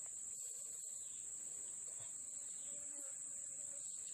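Insects trilling in one steady, high-pitched drone that never breaks.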